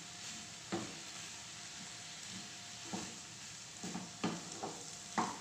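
Cabbage and mixed vegetables sizzling in a frying pan as they are stir-fried, with a wooden spatula knocking and scraping against the pan about six times.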